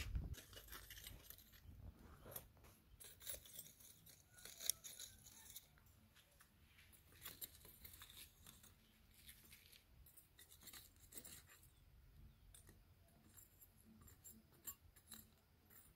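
Faint clinks and scrapes of a metal spoon digging burning charcoal out of a metal charcoal stove to cut the heat, because the fire is too hot. The clicks come most often in the first half and thin out later.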